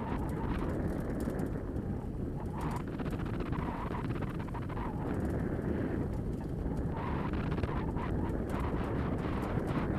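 Steady low rumbling wind and trail noise while riding a rig pulled by a running team of four husky-type sled dogs, with faint light clicks scattered through.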